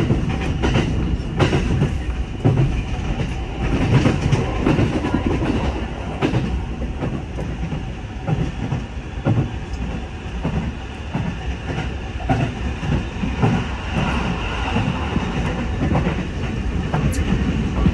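Electric commuter train running at speed, heard from inside the carriage: a steady rumble of wheels on rail with irregular clicks and knocks from the track.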